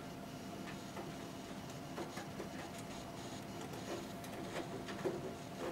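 Faint, scattered small clicks and scrapes of a screwdriver undoing a countersunk screw in a sheet-metal panel, over a steady faint hum.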